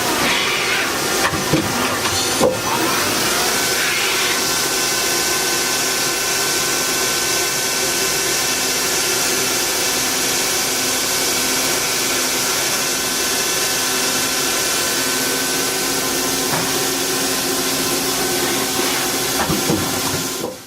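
Mori Seiki SL-25MC CNC turning center running: a steady hiss with a steady mechanical whine on top. In the first four seconds the whine glides up and down, as with speed changes, and there are a couple of sharp clicks; after that the sound holds steady until it stops abruptly.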